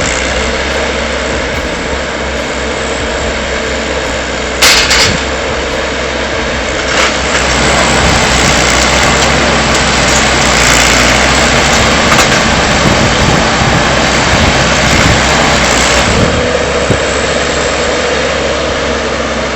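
Heavy timber forwarder's diesel engine running hard as it drives loaded, with a loud clank about five seconds in.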